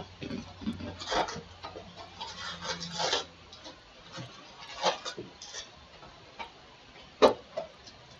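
Cardboard trading-card hobby box being opened and its foil-wrapped packs pulled out and stacked: irregular rustling, scraping and light taps, with one sharp tap about seven seconds in.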